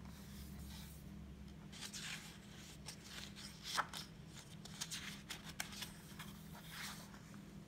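Soft rustling and scraping of the paper pages of a hardcover picture book being handled and turned, in a few faint scattered bursts over a low steady hum.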